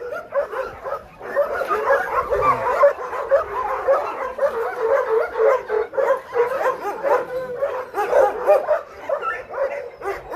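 Many dogs in shelter kennels barking and yipping at once, high-pitched barks overlapping without a break.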